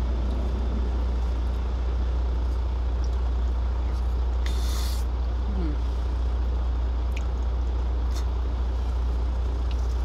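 Steady low rumble of an idling truck engine heard inside the cab, with soft chewing and a short hiss about halfway through.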